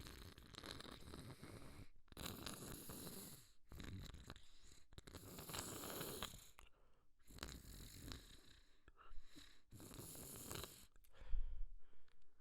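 A person blowing a runny, snot-filled nose after a sneeze fit: a string of long, wet, rumbling blows with short breaks between, the loudest near the end.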